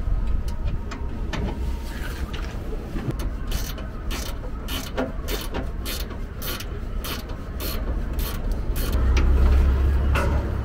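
Hand tools working the bolts of a bus's exhaust pipe fittings: a run of sharp clicks, about three a second, ratchet-like, over a steady low rumble that grows louder near the end.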